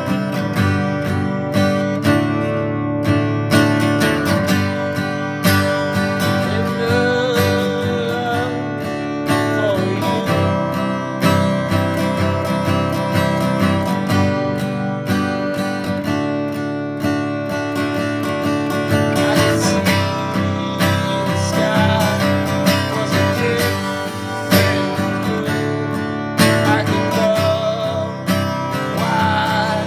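Acoustic guitar music, strummed and picked, playing steadily.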